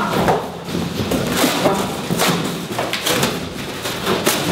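A large cardboard box being handled and shoved about on the floor: irregular thumps and scraping, a few knocks a second.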